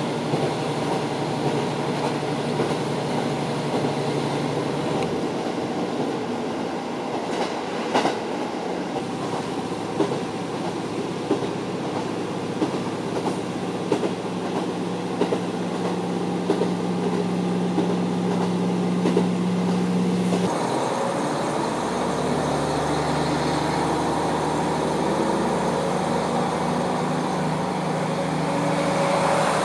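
KiHa 40 diesel railcar under way, heard from inside: a steady diesel engine drone with the wheels clicking over rail joints. The engine note shifts abruptly about two-thirds of the way through.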